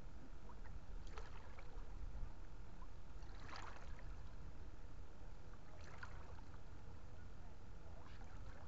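Lake water lapping gently, with soft swishes about every two to three seconds over a low, steady rumble.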